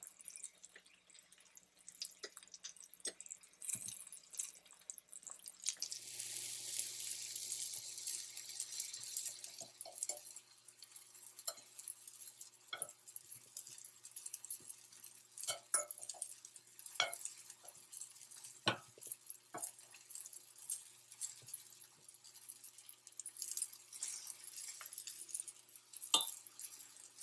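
Floured chicken breast frying in hot oil in a cast-iron skillet: a quiet sizzle with scattered pops and crackles. The hiss swells about six seconds in and again near the end.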